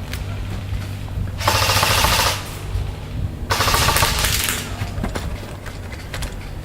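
Airsoft rifle firing on full auto in two rapid bursts, each about a second long, the second starting about two seconds after the first ends.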